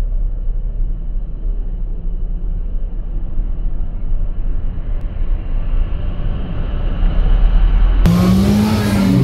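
A steady low rumble of car engines as a Honda Civic Type R (FK8) pulls out of the pit lane. About a second before the end, the sound changes abruptly to the Type R's 2.0-litre turbo four-cylinder heard from inside the car, its note rising and then falling as it accelerates.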